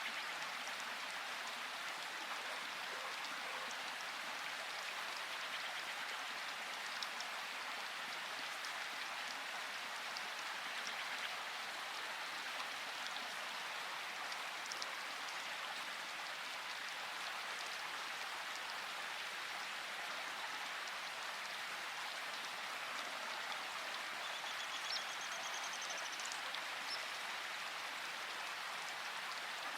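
Steady rain falling, a continuous even hiss with scattered individual drop ticks.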